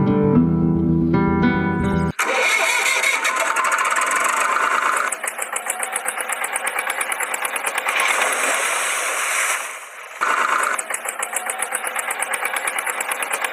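Acoustic guitar music for about two seconds, then it cuts to a tractor engine sound effect: an engine starting and running with a fast, even putter. It fades briefly about ten seconds in and starts up again.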